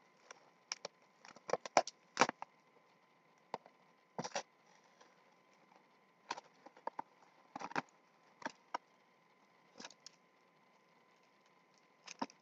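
Plastic wrapping and a small cardboard mystery box being handled and opened by hand: irregular crinkles and clicks in short clusters with quiet gaps between them.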